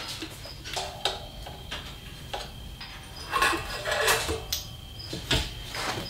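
Scattered metal clicks and knocks of BMX bike parts and tools being handled as the bike is taken apart, about half a dozen separate clicks with a couple of louder knocks.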